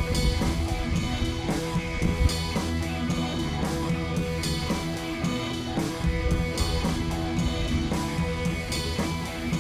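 Background music: guitar with drum kit and a steady beat.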